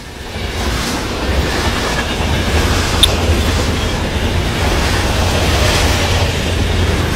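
Steady rushing drone of an airplane flying overhead, with a heavy low rumble underneath. A brief high chirp sounds about three seconds in.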